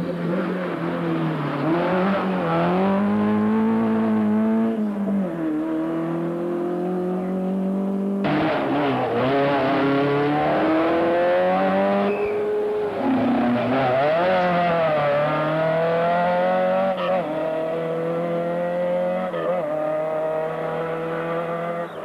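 Rally cars at full stage speed, their engines revving hard, the pitch climbing and dropping back again and again through gear changes. The engine sound switches abruptly a couple of times, as from one car to the next.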